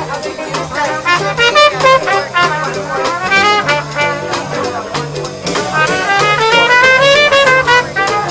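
Small live jazz band playing: a trumpet carries the melody over trombone and a drum kit keeping a steady beat.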